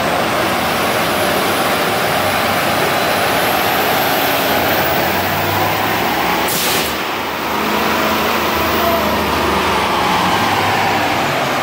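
2017 Chevrolet Silverado's L5P Duramax 6.6-litre turbo-diesel V8 running hard on a chassis dyno on a shot of nitrous, a high turbo whistle rising over the first few seconds. A short hiss comes about seven seconds in, and the whistle then falls away as the truck comes off the pull.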